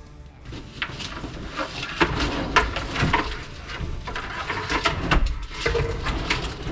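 A wooden drawer being fitted into a plywood kitchen cabinet: scattered knocks, clicks and scrapes as it is worked onto its runners.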